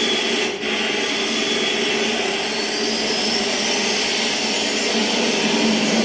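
Jet airliner engine noise played as a recording, starting suddenly and then holding a steady rush, with a faint rising whine a few seconds in.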